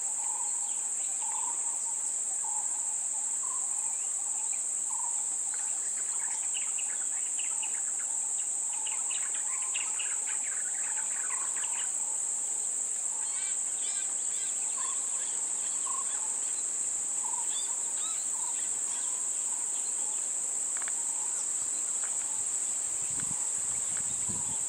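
Steady high-pitched drone of insects from the surrounding forest, with birds chirping over it, most busily a few seconds in.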